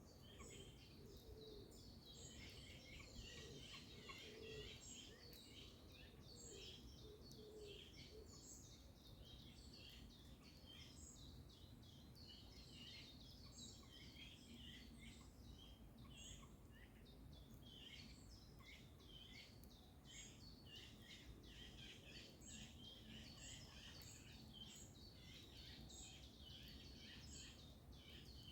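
Faint morning chorus of several songbirds, a steady stream of short high chirps and twitters, with a few lower repeated calls in the first several seconds.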